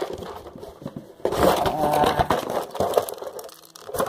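Scraping and rustling handling noise, louder from about a second in, with a short lull near the end.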